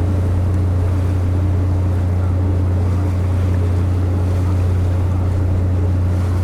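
Steady low drone of the Hahajima Maru's engines heard on board: a constant deep hum with fainter steady tones above it, under wind and sea noise.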